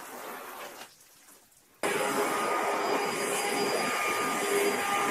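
Pressure-washer spray rinsing a car hood, then a short quiet gap. Just under two seconds in, a loud steady machine noise with a high whine starts abruptly.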